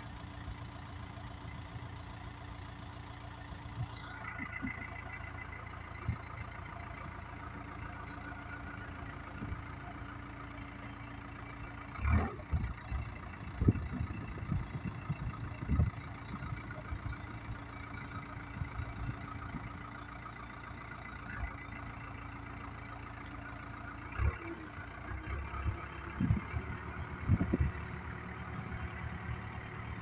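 Terex TX760B backhoe loader's diesel engine running steadily while the machine moves across the yard, with a rising whine about four seconds in. Scattered knocks and clanks from the machine come in two clusters, around the middle and near the end.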